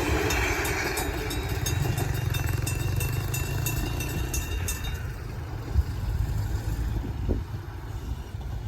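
Electric bell of an old bell-type railway level crossing ringing with rapid, even strokes, then stopping about five seconds in as the crossing clears. Underneath is the steady low rumble of a diesel railcar's engine, with a single short knock near the end.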